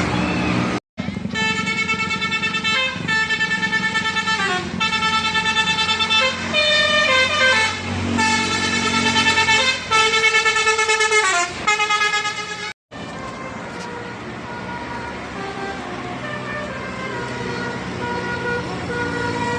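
Bus 'telolet' horn: a multi-tone musical air horn playing a tune of short stepped notes, some sliding down in pitch, over a low engine rumble. The sound cuts out abruptly twice, shortly after the start and about two-thirds of the way through. After the second break, a quieter horn holds a steadier tone.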